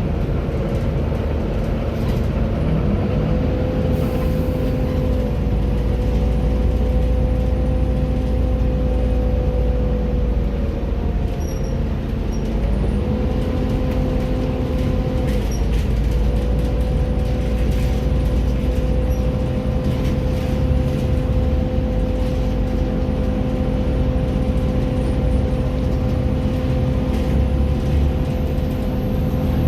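Volvo B7TL double-decker bus heard from on board while driving: a steady low engine rumble with a constant drivetrain whine over it, which dips briefly twice, about twelve and fifteen seconds in.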